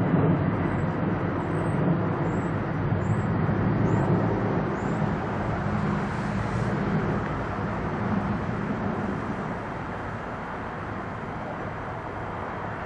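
Boeing 757's twin turbofan engines at climb power: a steady low rumble from the airliner climbing away, slowly fading over the last few seconds as it recedes.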